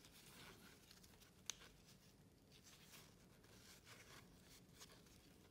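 Near silence: faint rustling of trading cards being slid through gloved hands, with one light click about a second and a half in.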